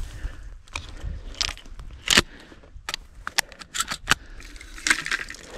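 Footsteps through dry prairie grass and brush, crackling and swishing in irregular sharp bursts against boots, clothing and gear, the loudest a little after two seconds in. Wind rumbles on the microphone underneath.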